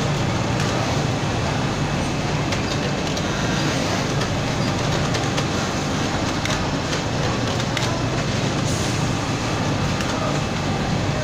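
Steady mechanical din of industrial sewing machines running, an even low hum with faint clicks.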